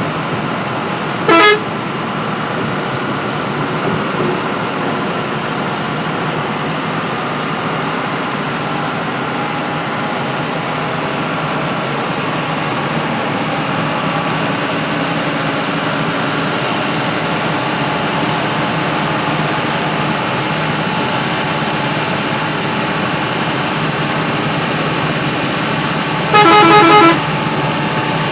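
Bus engine and road noise heard steadily from the driver's cab at highway speed. The bus's horn gives a short blast about a second in, and a longer, louder, pulsing blast near the end, sounded while overtaking.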